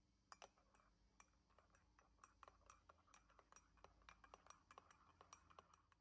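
Metal teaspoon clinking against the inside of a ceramic mug while stirring coffee: faint, quick, irregular light taps, a few a second, stopping near the end.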